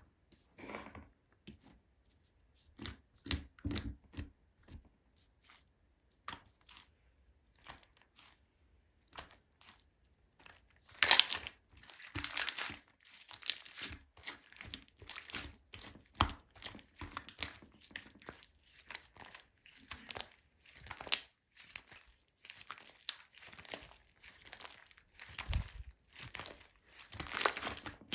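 Slime being handled and squeezed by hand, giving irregular sticky clicks and crackles. The handling gets busier and louder from about eleven seconds in.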